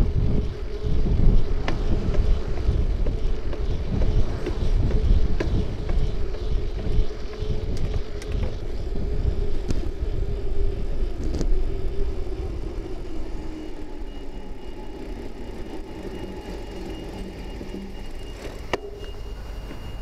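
Ride noise from a bicycle-mounted camera: wind buffeting the microphone and tyres rumbling on the road, with a steady hum and scattered sharp clicks and rattles from bumps. It grows quieter after about twelve seconds as the bike slows almost to a stop.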